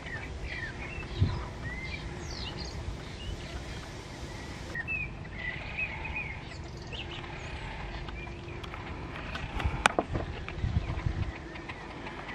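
Small birds chirping and twittering in short scattered calls over a low rumble and a faint steady hum, with one sharp click a little before ten seconds in.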